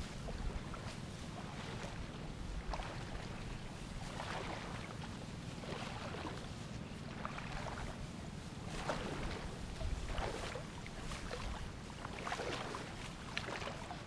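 Wind buffeting the microphone, a steady low rumble, with irregular rustling swishes from the ripe rice plants around it.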